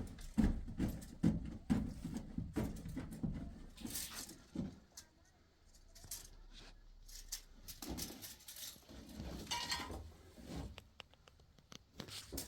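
Irregular knocks and clicks with low thuds, densest in the first four seconds and again about eight to eleven seconds in.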